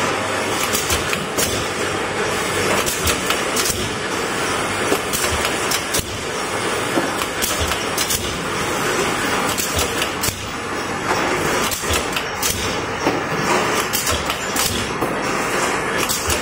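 Automatic rat glue trap machine running: a continuous mechanical clatter with many sharp clacks at uneven intervals from its air-driven folding stations and conveyor.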